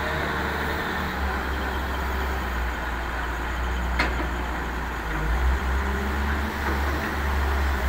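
Hitachi wheeled excavator's diesel engine running steadily while loading, swelling a little in the second half, with a single sharp knock about four seconds in.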